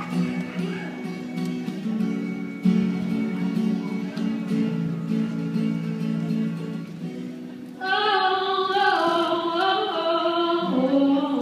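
A young female singer accompanying herself on acoustic guitar. Guitar chords ring on their own for most of the stretch, then her voice comes in loudly about eight seconds in.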